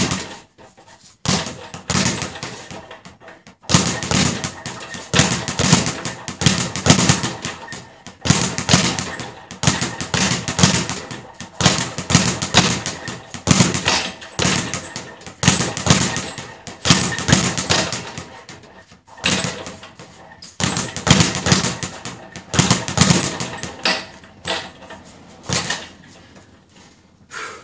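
Speed bag being punched, the bag knocking rapidly against its rebound platform in fast rattling runs. The runs break off every few seconds and restart, and stop near the end.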